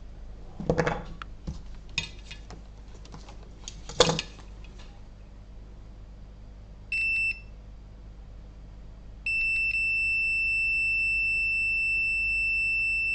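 A few clicks and taps of test probes, then a multimeter's continuity tester gives a short high beep about seven seconds in. From about nine seconds in it sounds one steady, unbroken beep: the probes are across a dead short, reading zero ohms.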